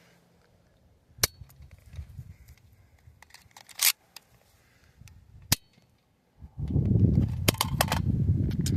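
Toy foam-dart blaster shots: sharp snaps, first single ones a couple of seconds apart, then three in quick succession near the end. A low wind rumble on the microphone joins for the last couple of seconds.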